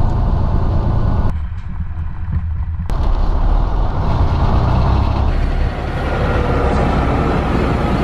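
Semi truck's engine and road noise heard inside the cab while driving, a steady low rumble. It changes abruptly a few times, and a faint rising whine comes in near the end.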